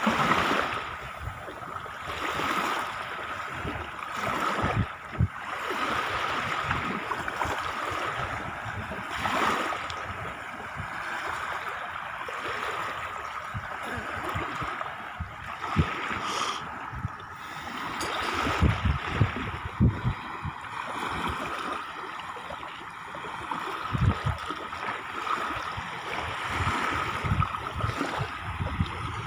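Small sea waves lapping and washing onto a shallow sandy shore, a steady rush that swells and eases every few seconds, with occasional short low thumps.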